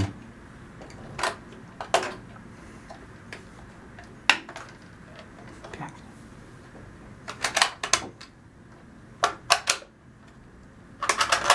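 Hard plastic parts of a toy fire engine clicking and knocking as they are handled, with scattered single clicks and short clusters. Near the end comes a quick run of rattling clicks as a side-locker roller shutter is slid open.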